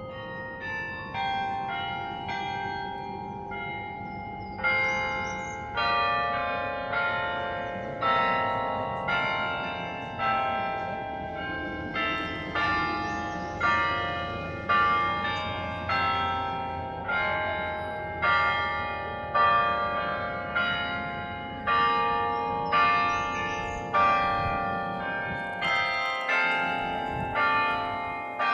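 The Berlin Carillon's bronze tower bells, played by hand, ringing out a slow melody. Notes are struck one after another, about one or two a second, each ringing on under the next; the strokes grow stronger about four seconds in.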